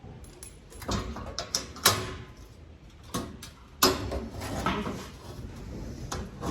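Sheet steel being handled and worked by hand to bend it: irregular scrapes and knocks, with two sharper bangs about two and four seconds in.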